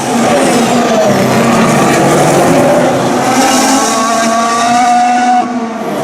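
2016 Formula 1 cars' turbocharged 1.6-litre V6 hybrid engines running at speed on track, the engine note gliding up and down in pitch, with a brief dip in level near the end.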